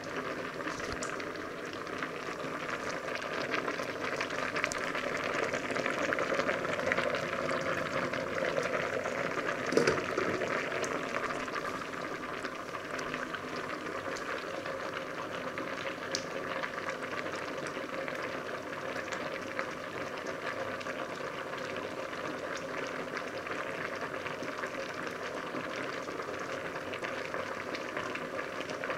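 Pasta water boiling hard in a large stainless steel stockpot: a steady bubbling with fine crackle, a little louder for a few seconds in the middle. A single knock about ten seconds in.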